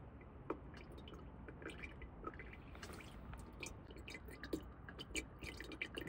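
Faint, irregular dripping of water from rain gutter downspouts onto a screen filter: scattered small drips and ticks with no steady rhythm.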